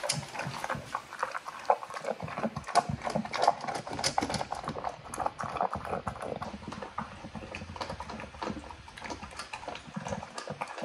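American bully dog feeding at a stainless steel bowl in a raised feeder: a quick, irregular run of clicks and mouth noises against the metal.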